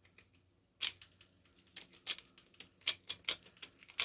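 Lock pick raking the pins of a Master Lock padlock: quick, irregular metallic clicks and scratches, starting about a second in.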